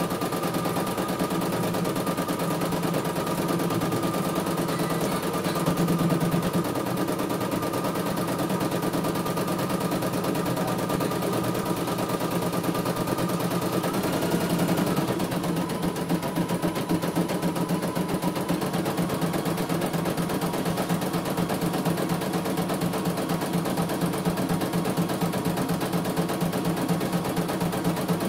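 CNY E900 computerized embroidery machine stitching steadily, its needle clattering in a rapid, even rhythm, with a faint motor whine that shifts about halfway through.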